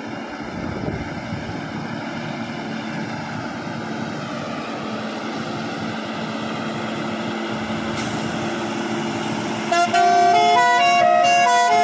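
Fully loaded Tata truck's diesel engine pulling steadily up a hill road, its drone growing slowly louder as it comes closer. Near the end a loud musical truck horn starts, a held note with a stepping tune above it.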